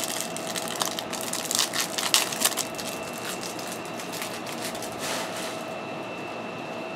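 Trading cards being handled and shuffled: a quick run of dry crackling rustles over the first couple of seconds, then another brief rustle about five seconds in.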